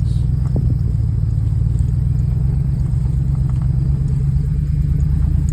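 Vehicle engine running steadily, a constant low rumble heard from on board.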